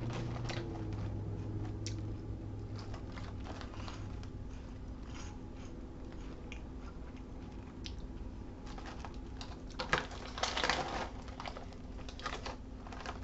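Crunchy Kuai Kuai corn snacks being chewed, with the plastic snack bag crinkling as a hand reaches in; a louder cluster of crunches and rustles comes about ten seconds in.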